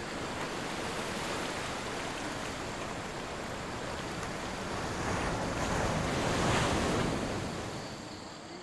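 River current rushing steadily, swelling to its loudest about six seconds in and easing off near the end.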